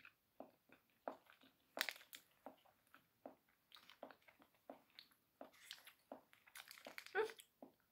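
Soft chewing of a nutty chocolate bar, mixed with the crinkle of its foil wrapper being handled and peeled back. Short, irregular crackles, with louder ones about two seconds in and near the end.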